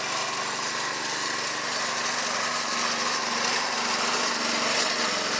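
Small gasoline engine of a homemade cable winch running steadily at idle.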